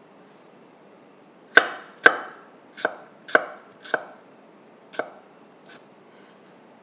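Chef's knife slicing a garlic clove on a wooden cutting board: six sharp knocks of the blade striking the board, unevenly spaced over about three and a half seconds, the first two loudest.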